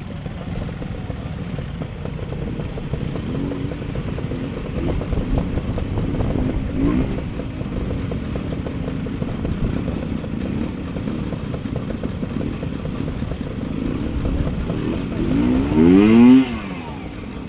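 Classic trials motorcycle engines running at low revs, with the engine note rising and falling as the throttle is blipped. About sixteen seconds in, a sharper rev swells up and falls away, the loudest moment.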